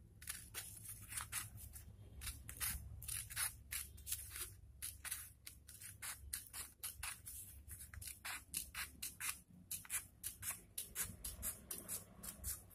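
Scissors cutting through folded newspaper along a curved line: a steady run of short snips, about three a second.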